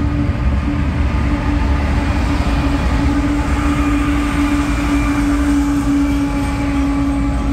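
Two BNSF diesel-electric locomotives running mid-train in a passing freight train. They give a steady engine drone with a held humming tone over a deep rumble, along with steel wheels rolling on the rails.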